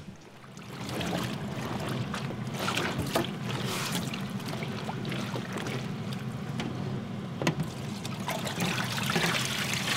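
Water trickling and splashing with many small drips, over a steady low hum; it fades in about a second in.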